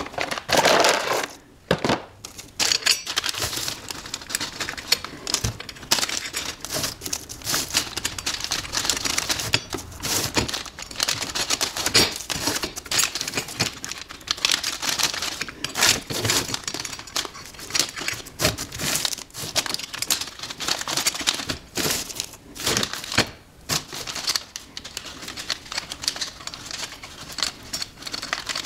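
Ratchet wrench clicking in quick runs with short pauses as nylock nuts are run down onto the bolts that hold an aftermarket wave brake rotor to its carrier.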